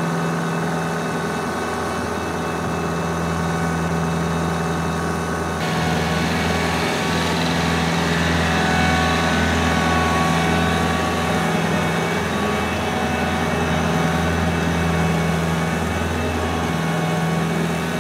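Compact tractor's engine running steadily under load while driving a PTO-powered Maschio power harrow whose rotating tines till the soil.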